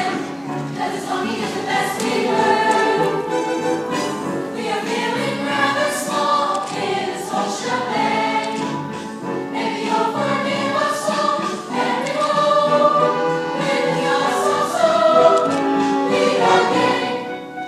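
A middle school cast singing a musical number together in chorus, many young voices on a continuous melody.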